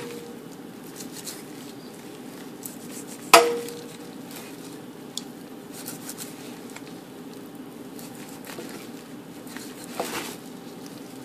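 A knife trimming fat from a raw pork roast over a plastic meat tray in a stainless-steel sink. Faint handling ticks are heard, with one sharp knock that rings briefly about three seconds in and a softer knock near the end.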